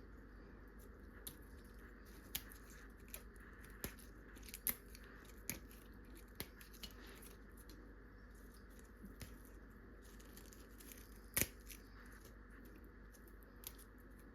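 Fresh coriander (cilantro) leaves being plucked from their stems by hand: faint, irregular little snaps and ticks, a few seconds apart, with one sharper click about eleven seconds in.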